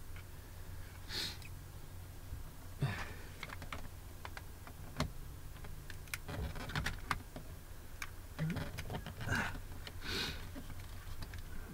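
Scattered plastic clicks, knocks and scrapes from handling a truck door's power window switch panel and prying at its wiring connectors with a screwdriver, over a low steady hum.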